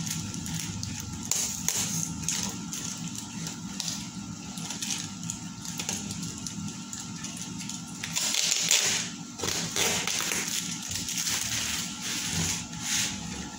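Bubble wrap and a cardboard parcel being cut open with a utility knife: small scrapes, clicks and crinkles of plastic and cardboard, with a louder rustle about eight seconds in.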